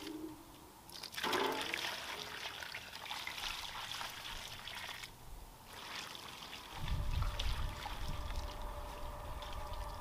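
Hot water poured from a metal pot onto the frozen soil of a garden planter to thaw it, trickling and splashing, with two short breaks. A low rumble joins about seven seconds in.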